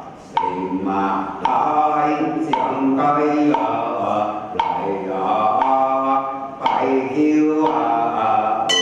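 Ritual chanting by voices in a measured, phrase-by-phrase rhythm, with short knocks between phrases. Something is struck sharply at the very end and rings on with steady tones.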